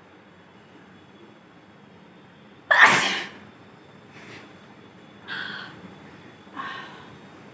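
A woman sneezes once, loudly and suddenly, about three seconds in, set off by a blade of grass tickling inside her nose. Two shorter, softer sounds follow later.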